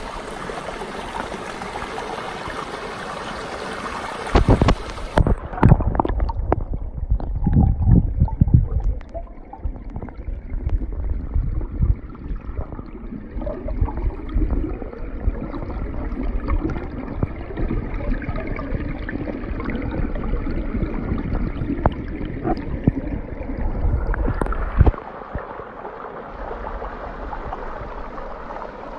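Mountain river rushing over boulders, heard at water level; about five seconds in the microphone goes under water and the sound turns muffled, with heavy low thumps and gurgling, until it comes back above the surface near the end.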